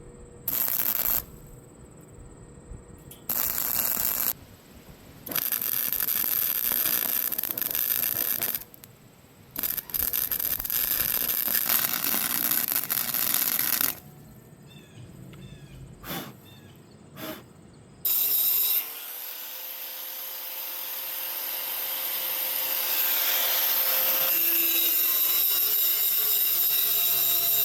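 Several separate bursts of welding crackle, each a second to a few seconds long with pauses between, as cracks in a steel seat bracket are welded up. From about two-thirds of the way in, an angle grinder spins up with a slightly rising whine and then grinds steadily.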